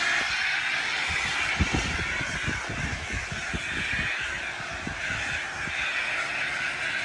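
Biocide being sprayed from a nozzle: a steady hiss that starts abruptly, with irregular low knocks underneath.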